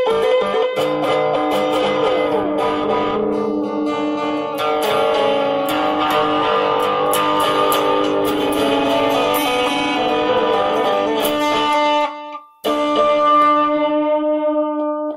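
Electric guitar played solo, picked notes ringing over held tones. Near the end the playing stops briefly, then starts again.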